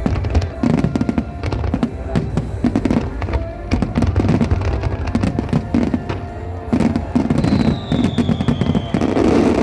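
Aerial firework shells bursting in a dense barrage: rapid irregular bangs and crackling, with a falling whistle about three-quarters through and a heavier burst near the end.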